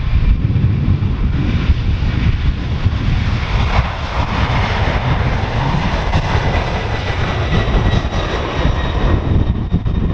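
Boeing 767's twin jet engines at takeoff power as the airliner rolls, rotates and lifts off. A heavy low rumble runs throughout; a hiss with a thin high whine swells in the middle and eases near the end.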